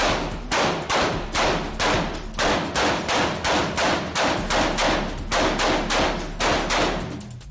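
AK-pattern rifle fired semi-automatically in a steady string of shots, a little over two a second, each echoing off the walls of an indoor range; the string stops shortly before the end.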